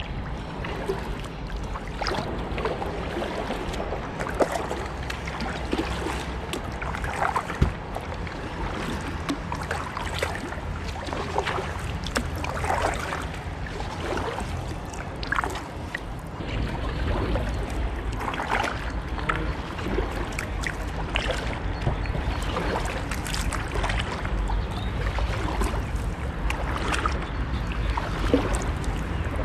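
Kayak paddle strokes: the blades dip and splash in the canal water about every second or so, over a steady low rumble. A single sharp knock about seven seconds in.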